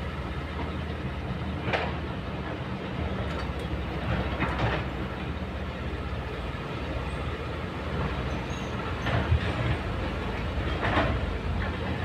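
Kobelco crawler excavator's diesel engine running steadily as the machine swings, with four short clanks spread through the sound.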